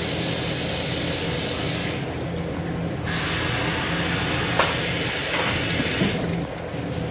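Kitchen background noise: a steady machine hum under a hiss, the hiss dropping out briefly about two seconds in and again near the end, with a couple of sharp clicks.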